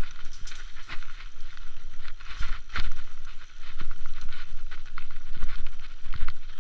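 Mountain bike rolling fast over a rocky dirt track: rapid irregular clicks and rattles from the bike over the rough ground, over a steady low wind rumble.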